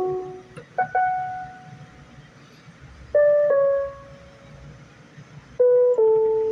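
Electronic keyboard playing three short two-note figures, a brief note followed at once by a slightly lower, longer-held one, about every two and a half seconds, each pair pitched lower than the last.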